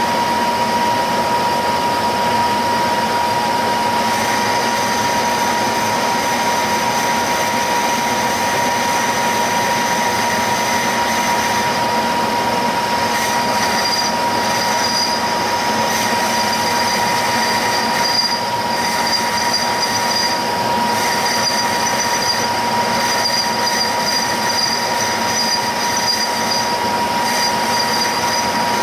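Monarch 10EE lathe running and machining a cast-iron chuck backing plate, with a steady high whine. A thinner, higher metallic squeal comes and goes over it from about halfway through.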